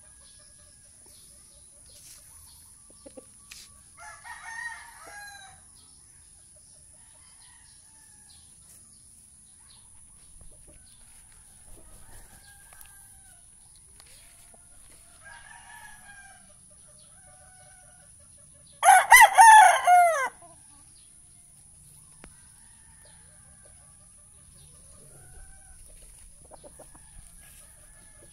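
Rooster crowing: one loud crow about a second and a half long, coming about two-thirds of the way through. A fainter crow comes about four seconds in, and there are soft, short clucking calls in between.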